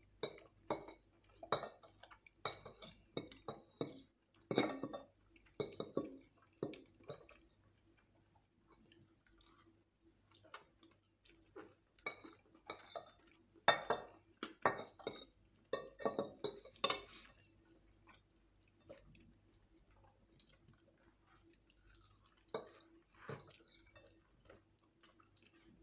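Metal forks clinking and scraping against plates in short, irregular clinks, with chewing sounds as spaghetti and fried chicken are eaten. The clinks thin out twice into quieter stretches.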